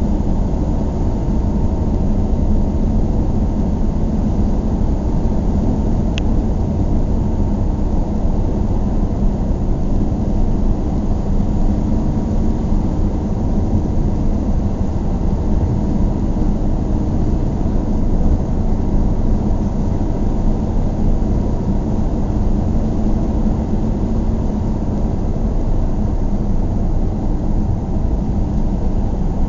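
Steady low rumble of a vehicle in motion, even throughout, with one brief high chirp at about six seconds.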